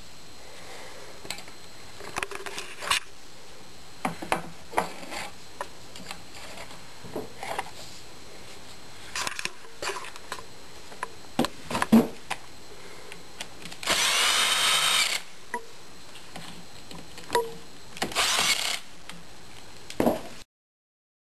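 Power drill running in two short bursts, one about a second and a half long near the middle and a shorter one later, among scattered knocks and clicks of handling.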